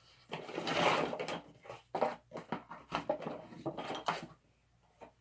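Rustling and handling of packaging and accessories from a camcorder box, with a run of sharp clicks and knocks; it dies away about four seconds in.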